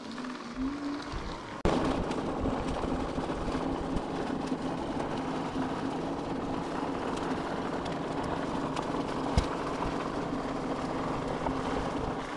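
E-bike riding over a dirt trail: steady tyre rumble with a held whine from its electric assist motor, the whine rising slightly in pitch at first. It gets suddenly louder a little under two seconds in, and a single sharp knock comes about nine seconds in.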